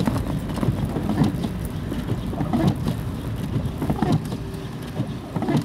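Car driving slowly along a snow-covered road, heard from inside the cabin: a steady low engine and road rumble with irregular knocks and bumps as the car rolls over the snow.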